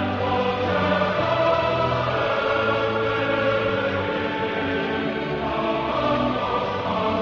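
Choral background music: voices singing long held notes over a steady low drone.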